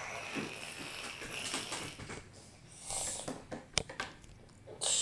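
Small plastic toy figures handled and set down on a wooden tabletop: light clicks and rattles, with one sharp click a little before four seconds in.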